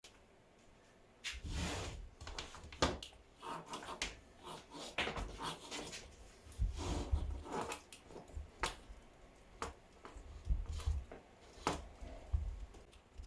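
Workshop handling noise: irregular knocks, clicks and low bumps of parts being moved and set down on a workbench, starting about a second in.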